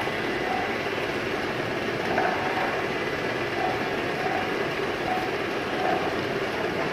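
Bottle labelling machine running: a steady mechanical clatter of the conveyor and labelling mechanisms, with brief faint tones coming and going.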